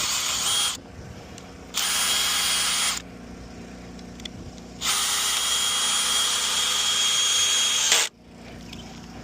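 Cordless drill running in three bursts, a short one, another of about a second and a long one of about three seconds that cuts off sharply, driving fasteners into a replacement bridge board.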